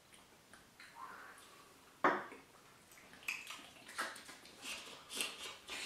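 A sharp clink about two seconds in, then a run of short clinks and liquid sounds from cups of sake being handled and drunk.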